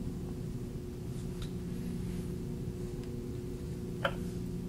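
Steady low electrical hum with a single short click about four seconds in, as the scanner's touchscreen is tapped to change menus.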